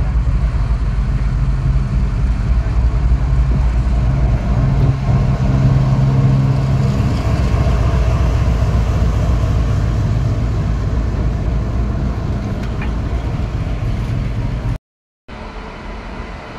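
WDG6G diesel-electric locomotive's big diesel engine running with a deep, steady drone as the locomotive rolls slowly past close by. It is loudest about halfway through. Near the end the sound cuts and a quieter, steady train rumble follows.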